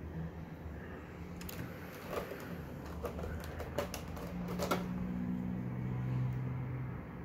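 Several light clicks and taps of hard plastic as a small PVC figure is set down and a face plate is taken out of a clear plastic blister tray, over a low steady hum. The clicks bunch up in the middle and stop about two-thirds of the way in.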